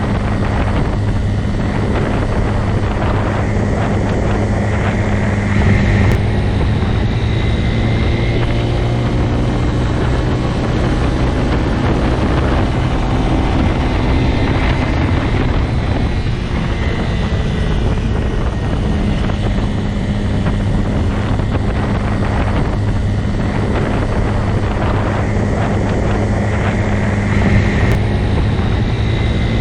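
Motorcycle engine running steadily, with a low, even drone and brief small rises in level about six seconds in and again near the end.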